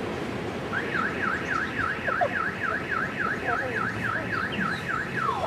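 Electronic siren wailing in a fast, even up-and-down sweep, about four cycles a second, like a car alarm's yelp. It starts about a second in and stops just before the end.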